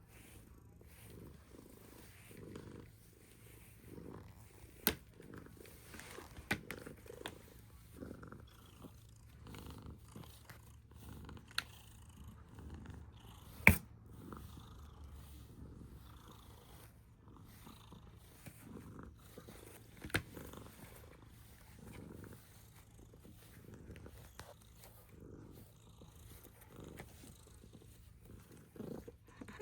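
Domestic cat purring steadily, a low rumbling purr that sounds like a snore. A few sharp clicks break in, the loudest about fourteen seconds in.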